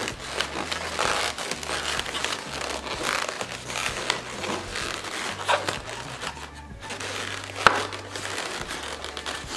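Hands squeezing and adjusting inflated latex balloons, the rubber rubbing against itself in an irregular run of scratchy crinkling sounds, with one sharp tap late on.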